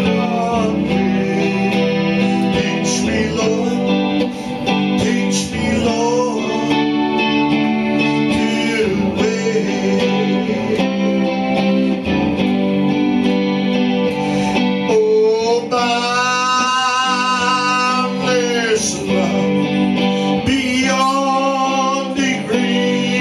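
A gospel song sung with guitar accompaniment, the voice holding long notes with vibrato over steady strummed or plucked guitar.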